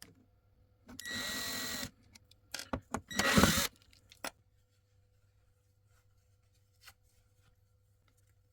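Power drill run in two short bursts, about a second and half a second long, with a few clicks between and just after. Then near silence.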